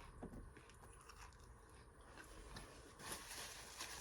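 Near silence with faint chewing and small mouth clicks while eating, and a brief soft rustle about three seconds in.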